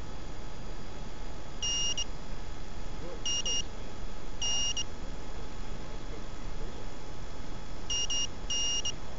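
High-pitched electronic beeps in short patterns over a steady hiss: a single longer beep, a quick double, another longer beep, and near the end a double followed by a longer beep.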